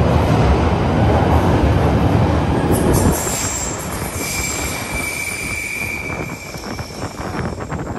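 London Underground Northern line train pulling out of the platform with a loud rumble that falls away sharply about three seconds in as the last car leaves. High wheel squeal rings out as it runs into the tunnel. Footsteps on a tiled floor near the end.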